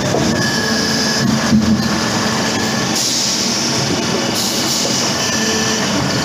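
Log debarker for plywood peeling running steadily, its rollers turning a log and stripping the bark off to round it.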